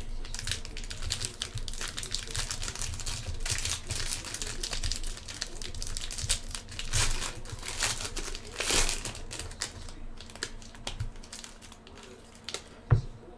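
Foil trading-card pack crinkling and crackling as hands work it open. The crinkling thins out after about ten seconds, and there are two soft knocks near the end.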